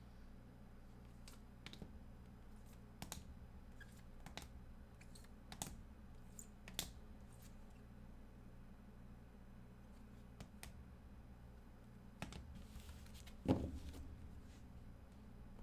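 Scattered faint clicks and taps of trading cards in plastic holders being handled and set down on a table, with one louder knock about thirteen and a half seconds in, over a low steady room hum.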